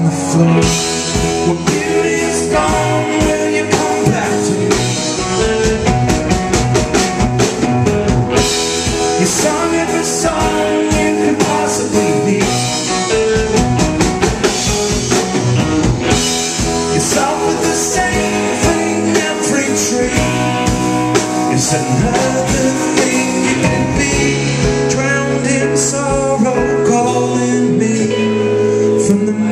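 Live rock band playing a song: electric guitar, bass guitar and drum kit, with keyboard and cello in the lineup, the drums keeping a steady beat.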